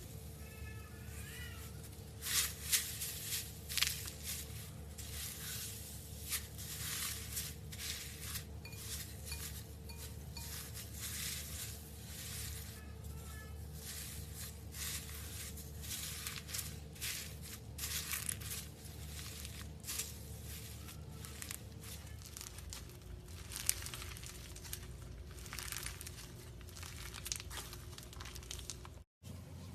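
Clear slime loaded with gold foil flakes being mixed and squeezed by hand, giving irregular crackling and crinkling, with a steady low hum beneath. The sound cuts out for a moment near the end.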